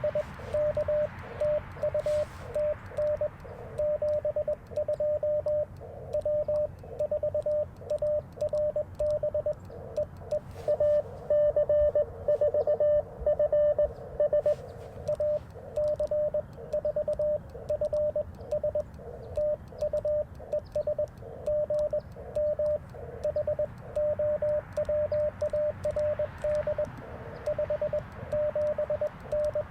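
Morse code (CW) from an Icom IC-705 transceiver: a single tone of about 600 Hz keyed on and off in dots and dashes, over steady band hiss. The keying is louder and brighter for a few seconds about a third of the way in.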